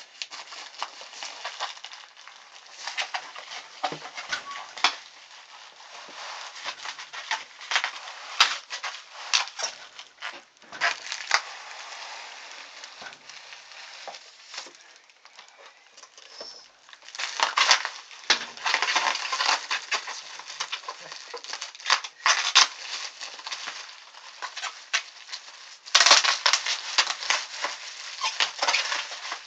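Packaging being handled and torn open: continuous crinkling and crackling with sharp clicks, growing louder twice, about 17 seconds in and again near the end.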